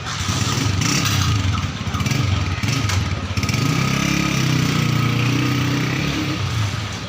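A motor vehicle engine, likely a motorcycle, revving up and passing by over steady traffic noise, its pitch rising and then falling away in the second half.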